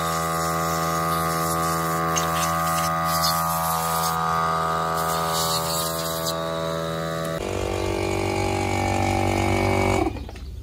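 A machine running steadily, a loud drone of many even tones. About seven seconds in it switches abruptly to a different, lower-set drone, and it falls away near the end.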